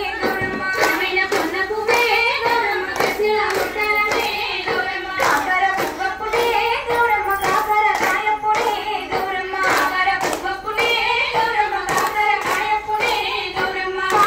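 A group of women singing a folk song together and clapping in a steady rhythm, roughly two claps a second, as they dance in a circle.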